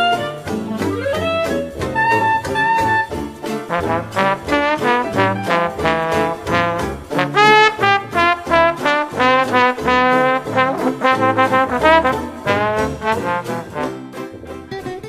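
Upbeat jazzy background music led by brass, trombone and trumpet, with a steady beat, fading out at the end.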